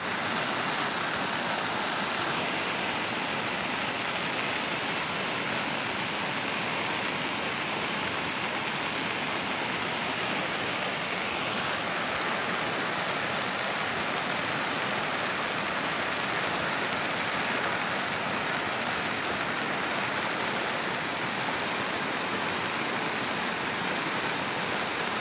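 Swollen, muddy flood water of an overflowing hill stream rushing across a dirt road: a steady, unbroken rush of water.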